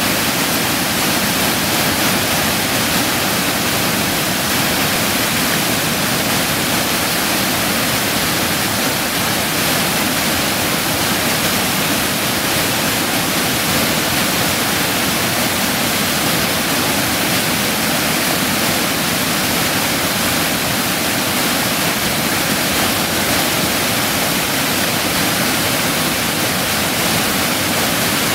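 Waterfall heard close up: a loud, steady rush of white water pouring over a rock ledge.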